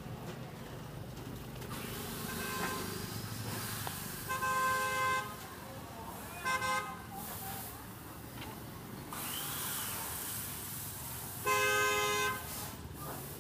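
Vehicle horn honking three times over a steady street background: a toot of about a second, then a quick double toot, then another toot of nearly a second near the end.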